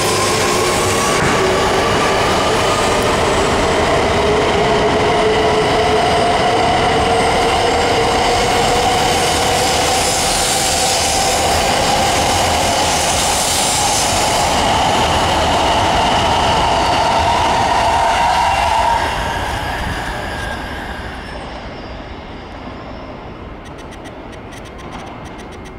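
Tōhoku Shinkansen E3 series 2000 coupled to an E2 series 1000 accelerating away from the platform. The electric traction motors give a whine that rises slowly in pitch, over a rushing noise of wheels and air as the cars pass. The sound fades away from about two-thirds of the way through.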